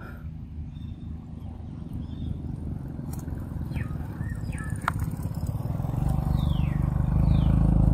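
Low engine rumble of a passing motor vehicle, growing steadily louder and loudest near the end. A couple of short falling bird chirps sound over it.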